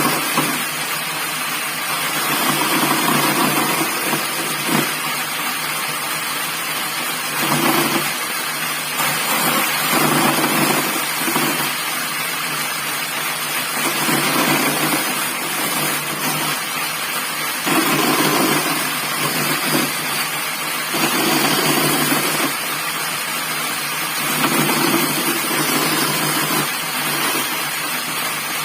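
Homemade teak-framed 16-inch bandsaw running, its blade cutting wood. Steady machine noise swells louder for a second or two every few seconds as the cut loads the blade.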